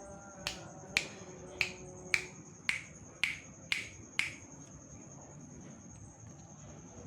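Eight sharp clicks or snaps, evenly spaced at about two a second, each with a short ring, over a steady thin high-pitched tone.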